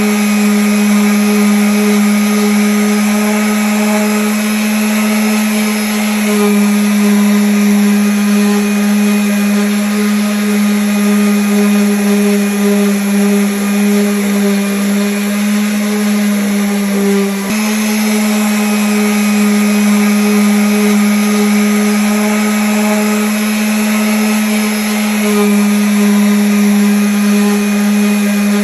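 Electric sander running steadily against wood: a constant motor hum over a grainy rubbing noise, with small shifts in tone a few times and a brief dip about seventeen seconds in.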